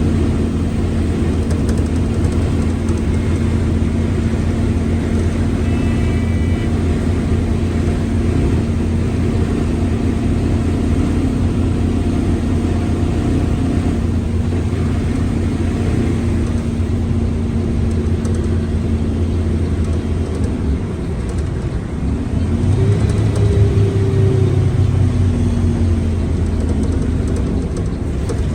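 Mercedes-Benz OF1721L BlueTec 5 bus running along with a steady engine drone and a steady whine from a growling gearbox. About 20 seconds in the sound dips briefly, then grows louder with a shifting pitch as the bus pulls again.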